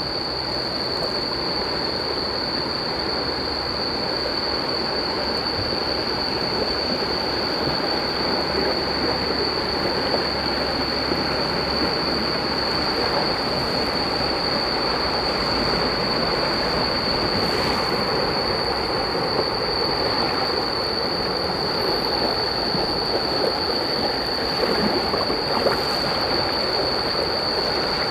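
River water rushing through rock rapids, a steady rush of noise, with a steady high-pitched whine over it.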